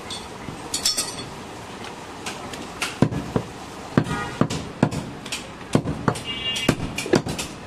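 Heavy butcher's knife chopping goat meat on a wooden block: sharp, irregular chops, few at first, then about two a second from about three seconds in.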